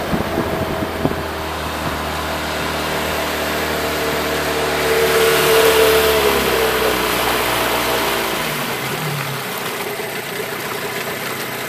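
Mercury 20 hp two-stroke, short-shaft tiller outboard running under way. Its note climbs a little to a peak about halfway, then drops in pitch and eases off.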